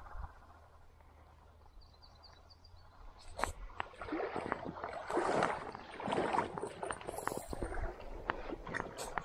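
Footsteps wading and sloshing through shallow creek water and soft bank, starting about three seconds in as a run of uneven splashes and knocks, loudest a little past the middle.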